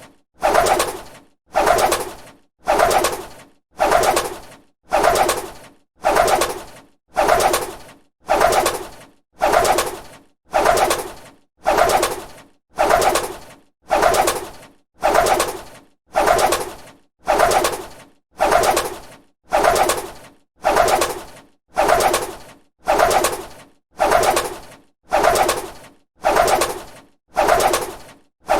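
A bird's wings flapping in a flurry, repeated at an even pace of about one burst a second, each starting sharply and dying away.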